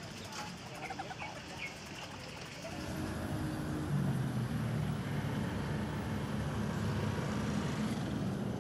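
Outdoor ambience with small birds chirping a few times, then from about three seconds in a steady low rumble of vehicle engines, as of nearby or distant traffic.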